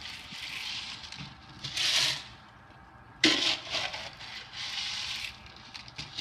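Green aquarium gravel being scooped from a plastic bowl with a plastic cup and poured into a small plastic crab tank: four rushing, gritty bursts of gravel, the loudest starting suddenly about three seconds in.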